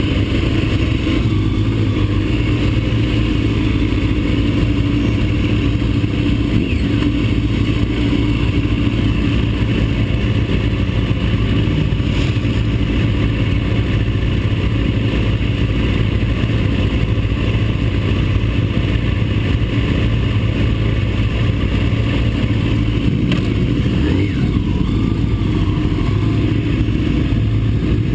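Engine and wind noise heard onboard a vehicle lapping a race track: a loud, steady drone with the engine note held fairly even.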